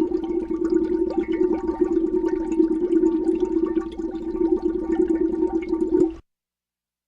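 Air bubbles streaming through the water of a fishbowl, a continuous crackling gurgle over a steady low hum, cutting off abruptly about six seconds in.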